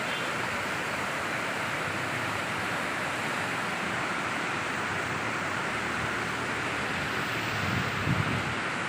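Steady rushing of river water, with wind buffeting the microphone briefly near the end.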